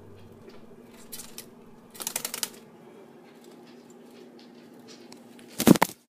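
Wet conures shaking out and fluttering their feathers: brief rustles, a quick rattling flutter about two seconds in, then a louder burst of wing flaps near the end.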